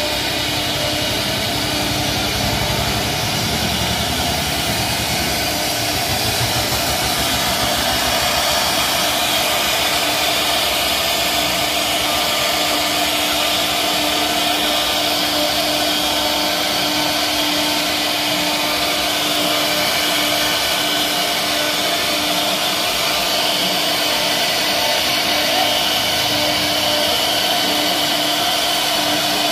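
CNC router spindle running and carving a relief pattern into a hardwood bed leg: a steady whine over the continuous noise of the bit cutting wood.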